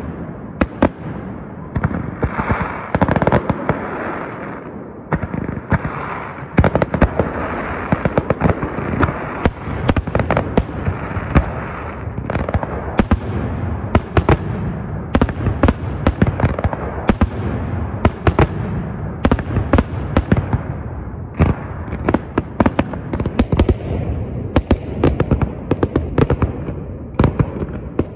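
Fireworks display: aerial shells bursting in a rapid, irregular string of sharp bangs, several a second, over a continuous dense noise of further bursts.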